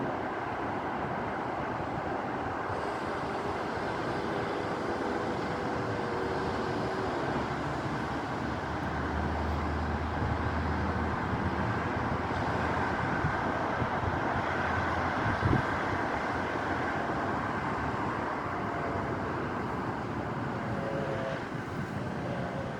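Strong gusty wind rushing steadily and buffeting the microphone, with a single knock about fifteen seconds in.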